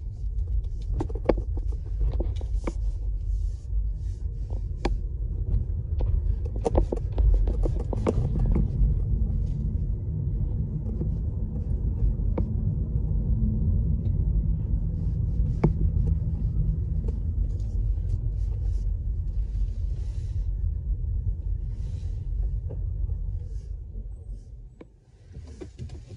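Car cabin rumble as the car drives slowly over a rough, unpaved car-park track, with scattered knocks and rattles from the bumps. The rumble dies away near the end as the car comes to a stop.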